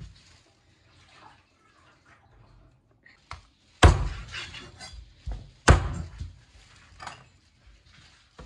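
Chopping knocks of a knife cleaving boiled chicken on a cutting board: a few irregular strikes, the two loudest about four and six seconds in, with lighter taps between.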